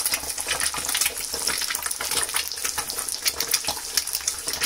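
Two eggs frying in a spoonful of hot oil in a pan, sizzling steadily with a constant fine crackle of spitting oil.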